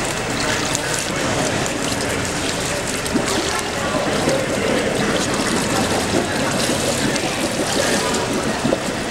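Pool water splashing and churning around a spinning Key Log synthetic log-rolling log as a roller keeps it turning underfoot.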